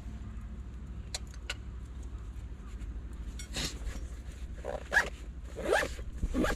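A few short rasping, zipper-like scrapes from hands working at the cooking gear, the loudest about five seconds in, over a steady low rumble of wind on the microphone.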